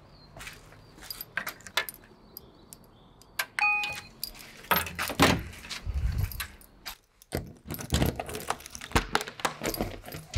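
Keys jangling on a keyring as a key fob is held to the building's door reader, which gives one short beep about three and a half seconds in. After that come louder clicks and clunks as the lock is worked and the glass entrance door is pulled open.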